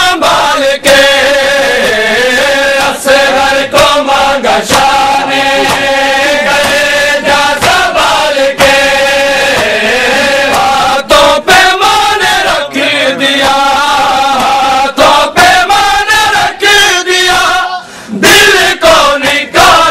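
Men's voices chanting a Shia noha lament in unison, with sharp slaps of hands on chests (matam) striking along with the chant. Near the end the chant breaks off briefly and a loud crowd shout rises.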